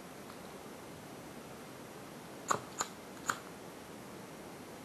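Three small, sharp clicks in quick succession about halfway through, from hands handling and stripping a battery lead at a tablet's circuit board, over a faint steady hiss.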